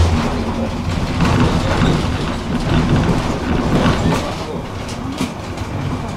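Tram running along street track, heard from inside the car: a steady rumble of wheels on the rails with a low hum and a few sharp clicks over the track.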